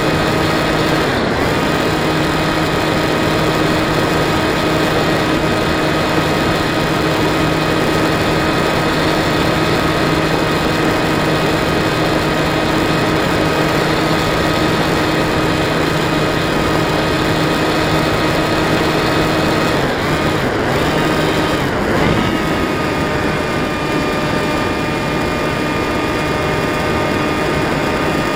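Bixler 2 model plane's electric motor and pusher propeller running steadily under a constant rush of air. The pitch dips briefly about a second in, and again around twenty to twenty-two seconds in as the throttle changes.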